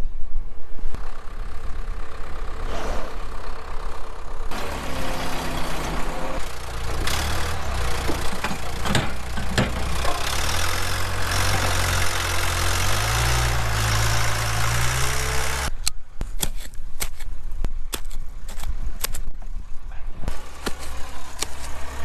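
A vehicle engine running under a loud rush of wind noise, its pitch stepping up in the second half. It cuts off suddenly about two-thirds through, and a run of sharp clicks and knocks follows.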